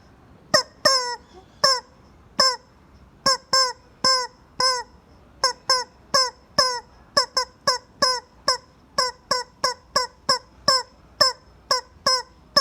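Rubber chicken squeezed over and over, giving short honking squawks that drop in pitch at the end, two or three a second in uneven runs.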